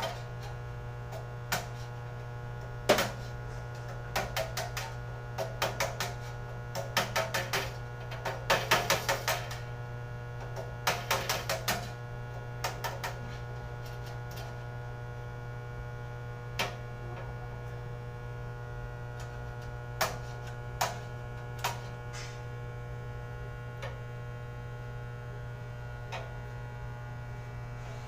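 Steady electrical mains hum, with quick bursts of sharp clicks and taps from hand-tool work on conduit fittings in the first half, then only a few single clicks.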